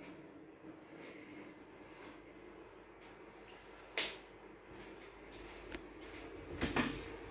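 A single sharp click about four seconds in, then a few knocks and rustles near the end, over a faint steady hum.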